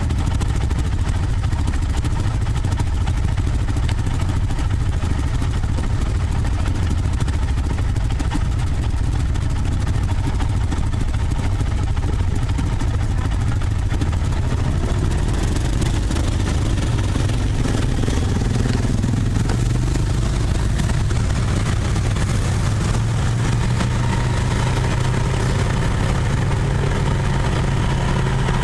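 A snorkelled mud ATV engine idles along with other ATVs and side-by-sides idling nearby. About halfway through the engine note rises, and it settles into a steady higher running pitch as the ATV pulls away.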